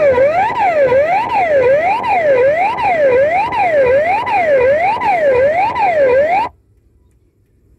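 Driving-test exam system's electronic wailing siren, sounding inside the car, its pitch sweeping up and down about once every 0.7 seconds and cutting off abruptly about six and a half seconds in. It is the signal for the test's sudden emergency situation, when the driver must stop and switch on the hazard lights.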